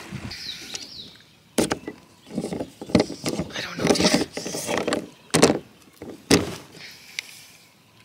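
Hard plastic knocks and scraping clatter as a fishing rod is handled in a plastic rod holder clamped to a canoe's gunwale. There are several sharp knocks, with scrapes and rattles between them through the middle.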